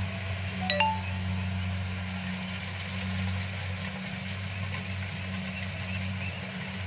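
Kubota DC-70 combine harvester running steadily, a low even engine hum with mechanical noise above it. A brief high chirp sounds once, under a second in.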